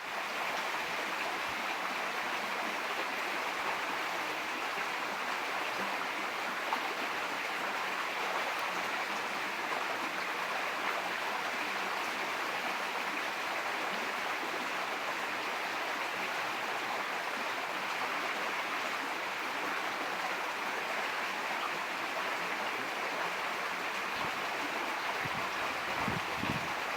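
Steady rushing of flowing stream water, fading in at the start and holding even throughout.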